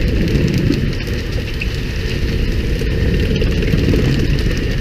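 Steady low rumble of the fishing boat's engine running, with a hiss of water and spray along the hull.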